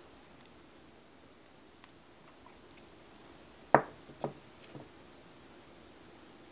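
Small hard-plastic clicks and taps from clear nail tips and a gel bottle being handled: a few faint ticks, then one sharp tap a little before four seconds in, followed by two softer taps about half a second apart.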